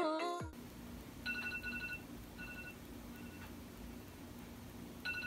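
A phone alarm going off quietly: groups of short, high electronic beeps repeating about every second, over a faint steady hum. Singing music fades out in the first half second.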